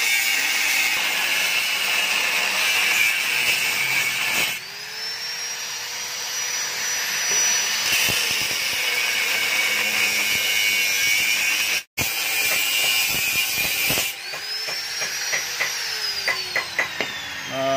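Electric angle grinder with a cutting disc cutting through a steel motorcycle exhaust pipe, a steady grinding hiss. Twice the motor's whine rises and holds, and near the end it winds down, followed by a few light metal clinks.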